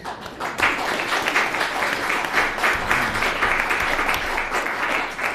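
Audience applauding, a dense patter of many hands clapping that starts a moment in.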